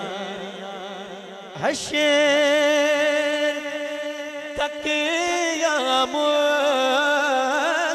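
A male naat reciter singing the refrain of a Punjabi naat into a microphone, with long, wavering held notes. About one and a half seconds in, his voice glides quickly upward into a sustained note.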